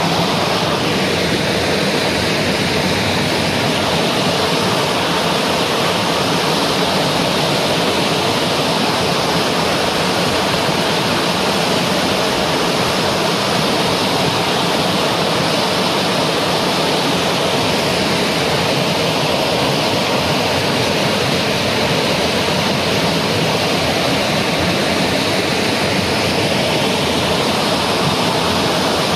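A waterfall rushing: a loud, steady wash of falling water that holds the same level without a break.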